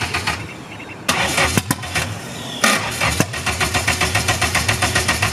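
Car engine being cranked over on its starter with an even, pulsing rhythm, in repeated attempts with a short break about a second in.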